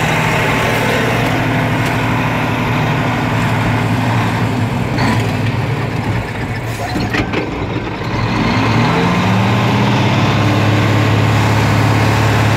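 Mack R model semi truck's diesel engine running, heard from inside the cab while reversing with a lowboy trailer. About eight seconds in the engine note rises and then runs louder, with a couple of short clicks before that.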